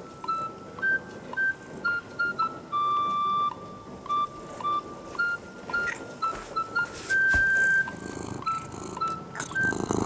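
Light, cheerful background music: a simple melody of plain beep-like notes that step up and down.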